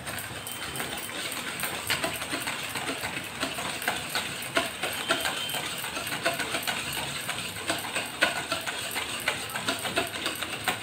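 Wire whisk beating ghee, sugar and curd in a steel bowl, its wires clicking and scraping against the metal in quick, irregular strokes, several a second.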